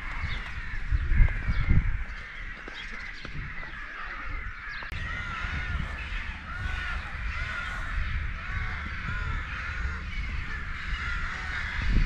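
Many birds chirping and calling together in short, repeated arching notes, over a low wind rumble on the microphone that is strongest in the first two seconds.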